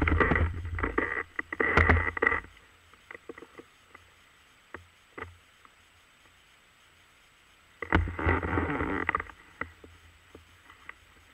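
Ski moving through deep snow, heard from a camera mounted on the ski: two bouts of scraping and crunching, the first at the start, the second about eight seconds in, with scattered soft clicks between.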